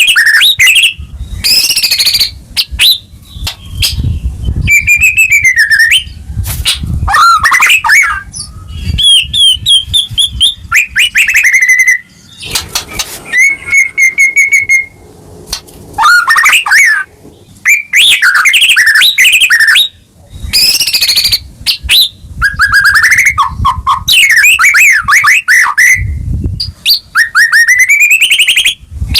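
White-rumped shama singing hard: a run of loud, varied phrases of clear whistles, rapid trills and chattering notes with short pauses between them. Low thumps sound under the song now and then.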